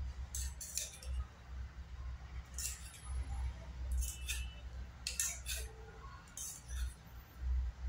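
Metal spoon clinking and scraping against a stainless steel bowl and plate as curry is spooned onto rice: about seven irregular sharp clinks over a low rumble.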